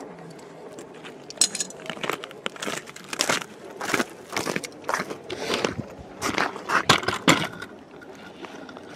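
Irregular crunching and crackling of boots moving on snow-crusted lake ice, with clothing rubbing close against the microphone.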